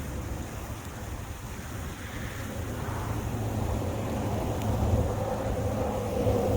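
Wind buffeting the microphone, an uneven low rumble that swells in gusts; a faint steady hum joins about halfway through.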